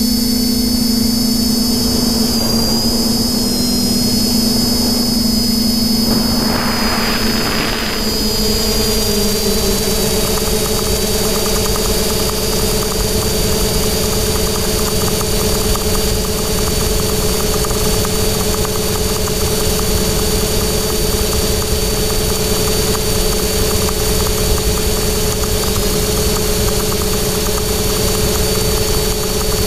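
Quadcopter's brushless motors and propellers buzzing loudly and steadily in flight, heard up close from the GoPro on the craft. The pitch shifts once about eight seconds in, then holds steady; a short rush of noise comes just before that.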